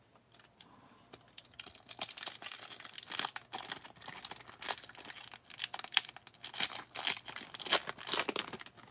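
A foil wrapper on a 1991 Fleer Ultra baseball card pack being torn open and crinkled by hand. The crinkling is a dense, uneven run that starts about a second and a half in.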